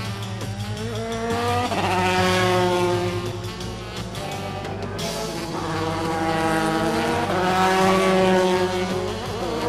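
Racing car engine revving hard, pitch climbing and dropping as it shifts through the gears several times.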